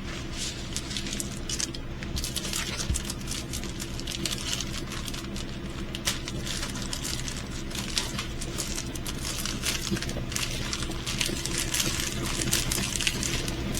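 Plastic packaging crinkling and rustling, with many small clicks and taps, as a diamond painting kit is handled, over a steady low hum.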